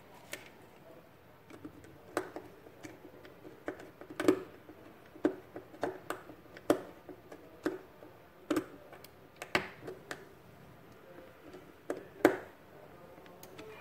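Irregular sharp clicks and taps of a plastic pushbutton contact block and its wires being handled on a tabletop, with a few louder knocks about four seconds in and near the end.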